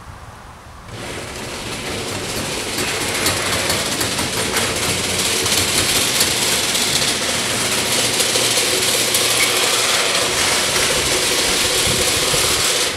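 Sectional garage door rolling up, a steady mechanical rattle of rollers and drive that starts about a second in and builds over the next couple of seconds.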